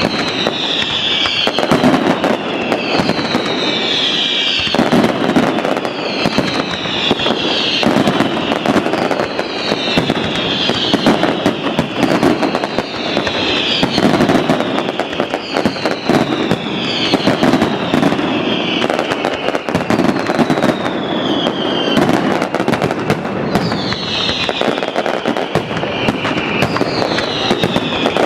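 Fireworks display: dense crackling and popping of bursting shells throughout, with a high whistle that glides down in pitch about every two seconds.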